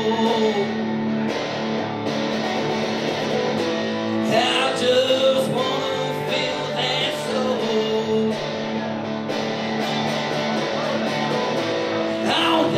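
Acoustic guitar strummed steadily, with a man singing phrases over it into a microphone, amplified live.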